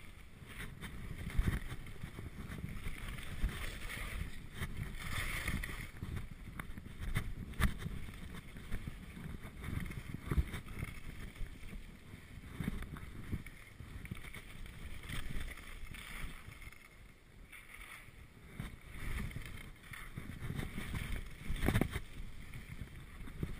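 Skis scraping and carving over hard, chopped snow in a fast descent, the noise surging with each turn, under wind rushing over the camera's microphone.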